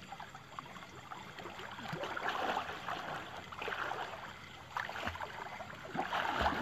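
Water splashing and sloshing as people thrash about in shallow pond water, coming in irregular bursts that are strongest about two seconds in, around four seconds and near the end.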